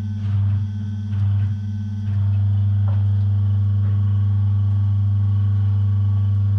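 Steady low machine hum from an electric motor. It swells and drops about once every 0.7 seconds at first, then runs evenly from about two seconds in, with a faint click near the middle.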